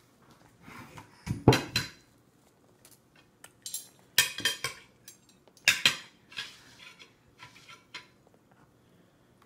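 A small spoon scraping and clinking against a metal-lined bowl in irregular bursts. The loudest comes about a second and a half in, with more around four and six seconds and a few lighter taps after.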